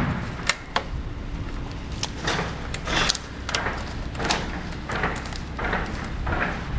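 Hands working the hood latch assembly on the radiator support: a couple of sharp clicks about half a second in, then a run of short rubbing scrapes about every half second.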